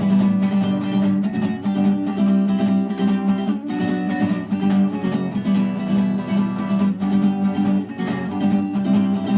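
Acoustic guitar strummed in a steady rhythm, playing chords in an instrumental passage of the song.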